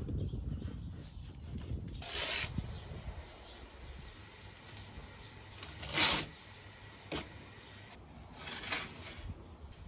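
Masking tape and paper being pulled and torn while masking a car body for primer: four short, sharp ripping sounds about two, six, seven and nine seconds in, over low handling rumble.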